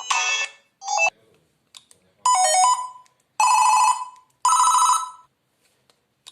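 Siemens CF62 mobile phone playing a run of short electronic SMS alert tones: about four brief jingles, each under a second, with pauses between them.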